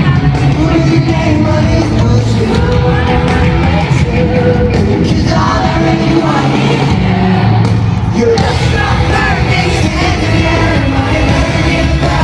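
Pop-punk band playing live in an arena, with electric guitars, drums and a lead singer, and the crowd yelling and singing along, heard from among the audience.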